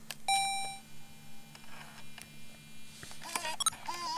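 Cassette recorder's play key clicking down, then a short beep and a steady low hum with tape hiss. Near the end come a few short warbling tones.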